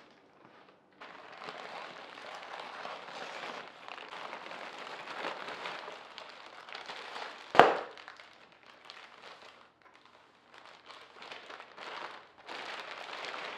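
Packaging being handled and unwrapped, a dense crinkling and rustling. About halfway through there is one sudden, loud, sharp crack.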